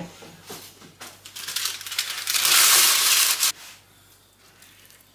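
Sheet of baking parchment being crumpled and pressed into a metal baking tin, a papery crinkling that grows and is loudest for about a second before stopping abruptly.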